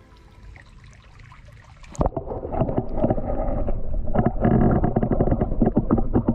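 Shallow stream heard through a camera held underwater: from about two seconds in, a loud, muffled rush and gurgle of the current with many small knocks and clicks. Before that, a faint trickle of the stream at the surface.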